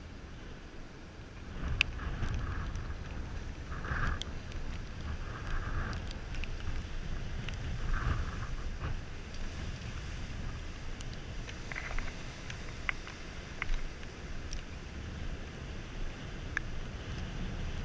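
Wind buffeting the microphone over a low rumble of surf, with scattered light clicks and taps.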